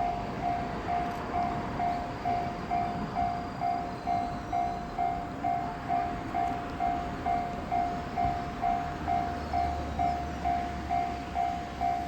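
Railway level-crossing warning bell ringing steadily at about two strikes a second, a single clear electronic tone, over a steady background noise that gains a low rumble about nine seconds in.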